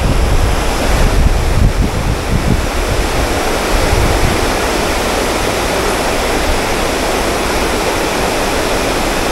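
Steady rush of water pouring over a low weir into a creek. Wind buffets the microphone in irregular gusts for the first four seconds or so, then the water noise holds steady.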